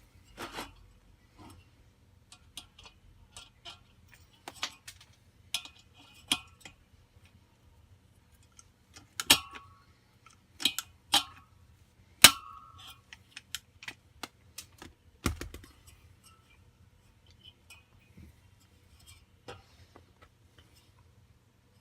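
Scattered sharp clicks and clinks of tools and small metal parts being handled, a few with a brief metallic ring, and one duller knock about fifteen seconds in.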